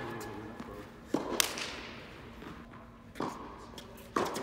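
Tennis balls being hit and bouncing on the hard court: several sharp knocks a second or two apart, the loudest about a second and a half in, each ringing out in the reverberant indoor hall.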